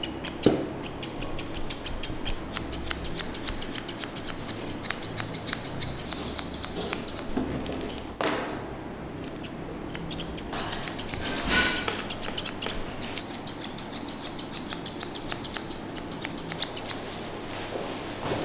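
Grooming scissors snipping through a Persian cat's long fur: a quick run of crisp snips, several a second, with a short pause about eight seconds in.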